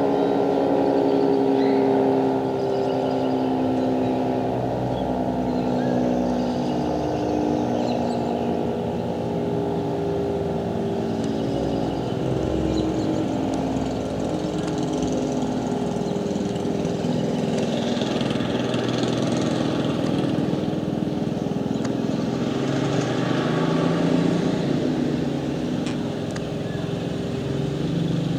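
Federal Signal 2T22 dual-tone rotating warning siren sounding: a steady chord of several pitches that holds throughout, drifting slowly.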